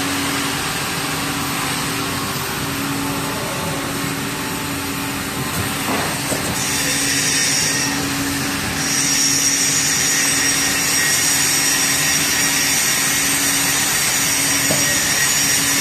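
Steady machinery noise from a hydraulic guided-bend tester bending a welded pipe test strap, with a low hum that comes and goes. A high whine joins briefly partway through and holds from about nine seconds in.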